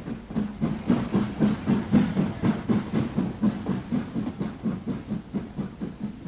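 Steam tank locomotive working a freight train, with quick, steady exhaust beats, about four a second, over a hiss of steam.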